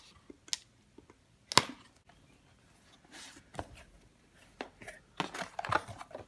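Packing tape on a cardboard box being cut and pulled open: scattered sharp clicks and snips, a louder click about one and a half seconds in, a short tearing rustle about three seconds in, and a cluster of clicks and rustles near the end.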